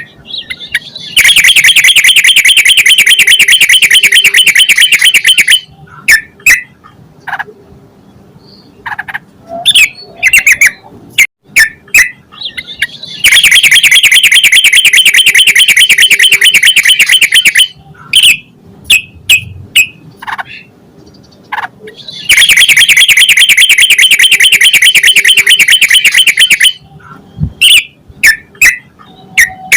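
Yellow-vented bulbul (trucukan) calling: three long bouts of rapid chattering notes, each about four seconds, with short scattered chirps in between.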